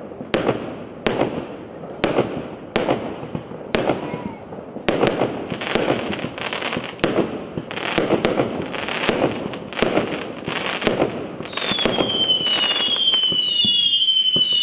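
A 100-shot, 0.8-inch consumer fireworks battery (cake) firing shot after shot, sharp bangs about two a second, each trailed by a crackling burst. From about twelve seconds in, several falling whistles overlap as whistling shells go up.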